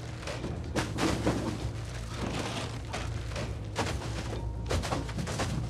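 Film score music with a steady low drone, overlaid by a string of dull thuds.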